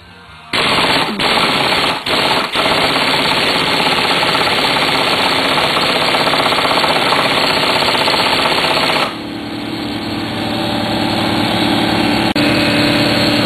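Pneumatic impact wrench hammering in long bursts, stopping briefly a few times, on the motorcycle's fasteners. About nine seconds in, the hammering stops and the shop air compressor's motor is left running with a steady hum.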